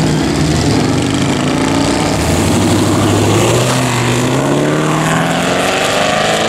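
Chevrolet Camaro engine revving hard as the car pulls out and accelerates away. The exhaust note rises in pitch, breaks at an upshift a few seconds in, then climbs again.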